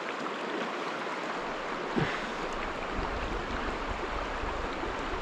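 River water running past, a steady rushing hiss, with one short sharp sound about two seconds in.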